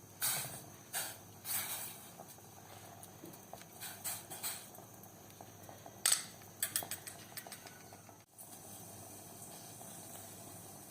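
A spoon stirring pomegranate peels and ginger in water in a cooking pot, scraping strokes about twice a second, then a few sharp clicks of metal on the pot about six seconds in. After a brief break there is a steady faint hiss.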